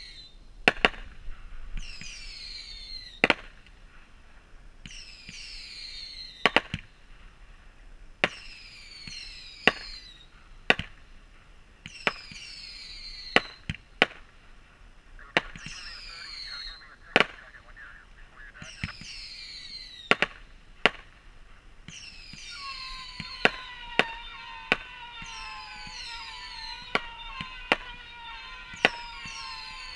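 Fireworks being set off one after another: a whistle falling in pitch, then a sharp bang, repeating about every one and a half to two seconds. From about two-thirds of the way in, several whistles overlap, some lower and longer, among quicker bangs.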